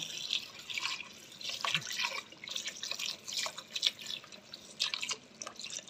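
Kitchen tap running into a glass bowl of cauliflower florets, with splashing and dripping as a hand swishes the florets to rinse them.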